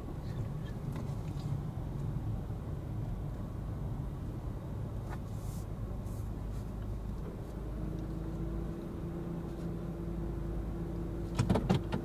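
Car interior noise while driving slowly: a steady low engine and road rumble. About two-thirds through, a steady engine hum settles in, and a few sharp clicks come near the end.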